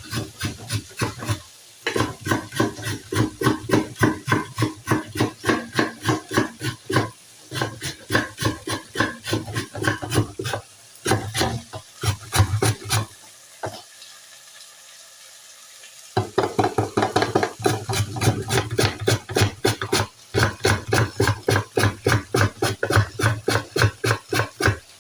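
Carrot being grated on the fine holes of a metal grater: quick, even scraping strokes, about three or four a second, with one short pause about halfway through.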